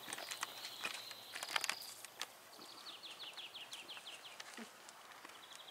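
A small songbird singing outdoors: a thin high note, then in the middle a quick trill of about a dozen short falling notes. Faint footstep clicks in the first two seconds.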